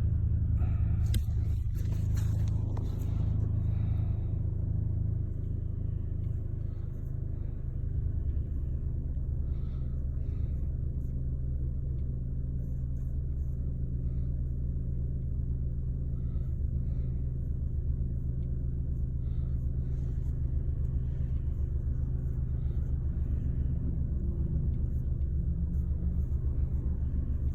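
2013 Chevrolet Sonic engine running with a steady low drone, heard from inside the car on a drive, the car having a misfire complaint with a flashing check engine light. A fine rapid pulsing runs through the drone from about a third of the way in, and there are some brief rustling noises near the start.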